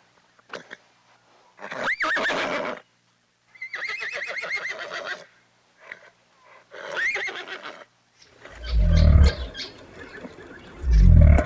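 A horse whinnying three times, the middle whinny a long quavering run of rising and falling notes. From about eight seconds in, two loud, deep calls of another animal follow.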